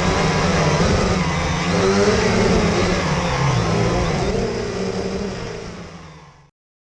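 Quadcopter drone's electric motors and propellers whirring, the pitch shifting up and down with throttle, then fading and stopping about six and a half seconds in.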